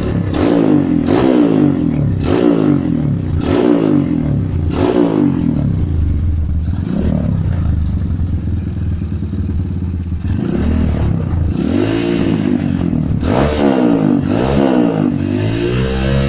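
Honda New Megapro's single-cylinder engine idling and being blipped: five quick throttle revs in the first five seconds, a few seconds of steady idle, then another series of revs rising and falling before it settles back to idle near the end.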